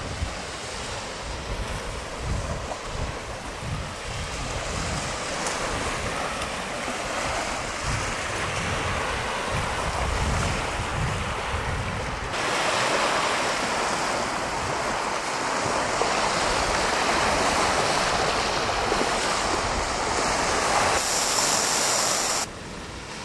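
Small waves washing onto a sandy beach, with wind buffeting the microphone in low gusts. About twelve seconds in, the sound shifts to a louder, steadier wash of surf with less wind rumble. Near the end there is a brief high hiss, then the level drops.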